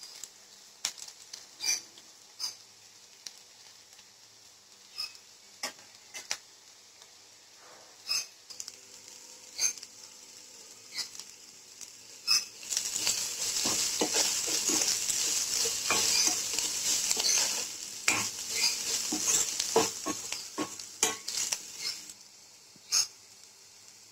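Steel spoon stirring and clinking against a steel pan of onions and mushrooms, at first in scattered sharp taps. About halfway through, a loud steady sizzle of frying in hot oil sets in for several seconds, with more spoon clinks over it.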